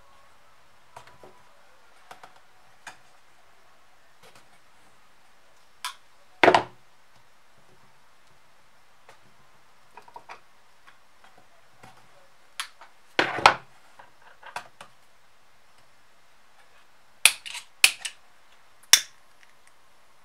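Hand-stitching thick leather with needles and thread: faint ticks as the needles and thread are drawn through, two louder dull knocks from the tools and clamp, and a quick run of sharp clicks near the end.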